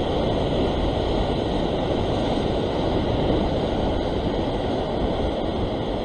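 Heavy surf breaking and washing over sea rocks: a steady rush of white water with no distinct hits.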